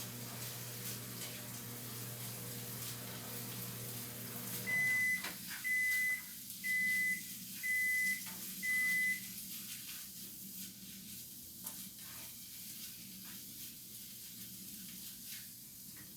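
Microwave oven running with a steady hum that stops about five seconds in, followed by five evenly spaced high beeps, about one a second, signalling that the cycle is done. A few light clicks and knocks follow.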